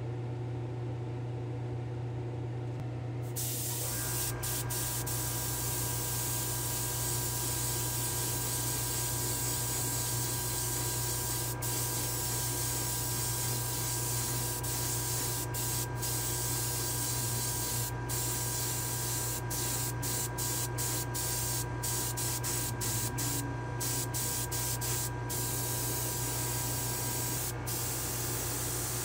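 Airbrush spraying silver sealer, the base coat, onto a die-cast car body: a steady hiss that starts about three seconds in, with several brief breaks as the trigger is let off. A steady low hum runs underneath throughout.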